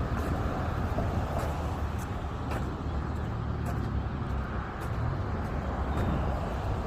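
Car engine and road noise: a steady low rumble.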